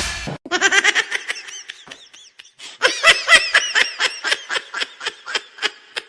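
High-pitched laughter in quick, rhythmic bursts, a comedy laugh sound effect. It comes in two bouts: one fading out about two seconds in, and a louder one from just under three seconds in until near the end.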